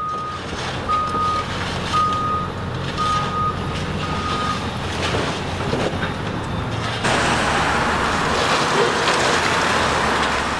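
Diesel engine of heavy construction equipment running, its backup alarm beeping five times, about once a second, then stopping. About seven seconds in, a louder rushing noise sets in over the engine.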